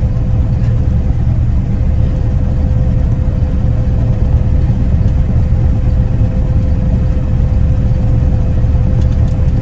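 Combine harvester running, heard from inside its cab: a steady low rumble with a constant whine over it.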